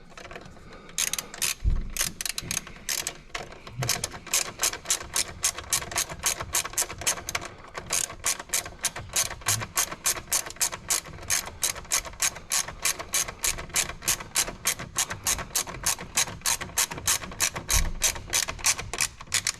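Hand ratchet wrench driving a 7 mm bolt back in. The pawl clicks rapidly and evenly, about four to five clicks a second, with a short pause about eight seconds in.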